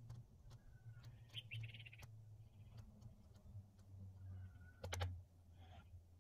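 Faint bird chirps and a few sharp clicks over a low, steady hum.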